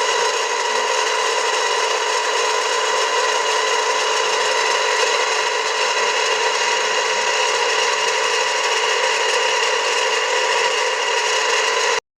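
Household electric water pump motor running with a loud, steady grinding rasp, the abnormal loud noise that is the pump's fault. It cuts off suddenly near the end.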